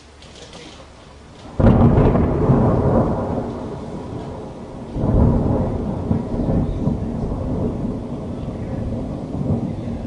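Thunder: a sudden loud clap about one and a half seconds in that rolls into a long, low rumble. The rumble swells again about five seconds in, then slowly fades.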